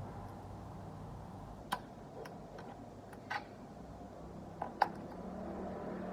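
Five short, sharp clicks and taps of small hard objects being handled, the last one the loudest, over a faint low hum.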